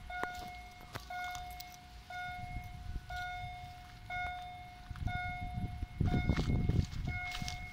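Railway level crossing warning signal sounding while the barriers are down: one steady electronic tone, each nearly a second long, repeating about once a second with a short gap. A low rumble swells between about five and seven seconds in.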